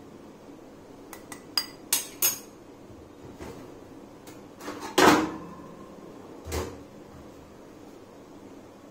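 Steel spoon clinking against an aluminium kadai and a glass bowl while soup is ladled out: a quick run of about five light clinks between one and two and a half seconds in, a louder metallic knock with a short ring about five seconds in, and a duller knock a second and a half later.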